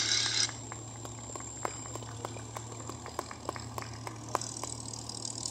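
Scattered, sparse hand clapping from spectators, a few claps a second, over a steady low hum.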